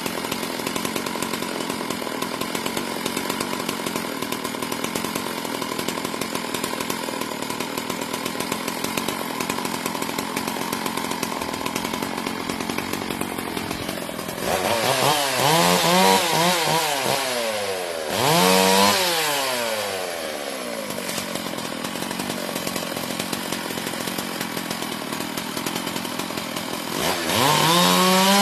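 Chainsaw running at a steady idle, then revved up three times: about halfway through, a few seconds later, and again at the end, its pitch climbing and falling with each rev.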